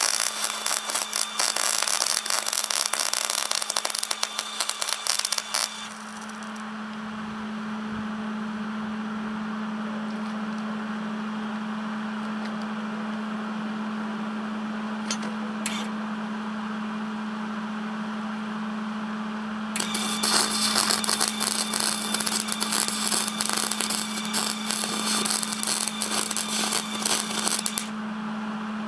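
Wire-feed (MIG) welder arc crackling and sizzling in two long welds, the first about six seconds long and the second about eight seconds long near the end, with a steady hum in the gap between them.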